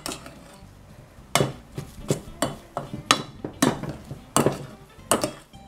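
Metal hand potato masher pounding boiled potatoes in a metal pot, knocking against the pot: a string of sharp knocks, about two to three a second, starting about a second in.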